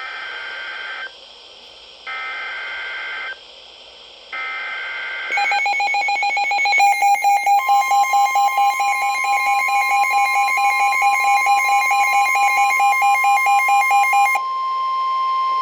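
Weather radio alert signal: three roughly one-second bursts of warbling two-pitch digital header data with about a second between them. Then a louder pulsing electronic alarm with many overtones sounds from about five to fourteen seconds in. Under it, a steady 1050 Hz warning alarm tone starts about seven seconds in and runs on, announcing a tornado warning.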